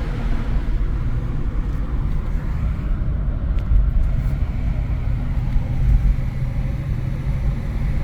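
Steady low rumble inside the cabin of a 1996 Audi A6 C4 cruising at an even speed. The stock 2.8 V6 runs under road and wind noise coming through an open side window.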